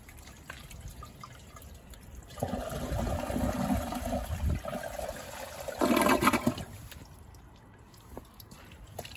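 Toilet flushing a cloth down the bowl: a rush of water starts about two and a half seconds in, with the loudest burst just before the flush ends, then it falls away to a faint trickle.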